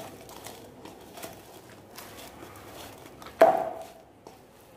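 Hands kneading soft, oiled flour dough in a stainless steel bowl: soft pats and squishes, with one loud knock about three and a half seconds in that sets the steel bowl ringing briefly.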